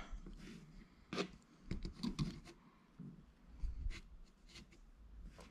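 Faint, short scrapes and taps of a screwdriver tip on a plastic thermostat base plate held against the wall, a few at a time, as the tip works at the plate's mounting hole.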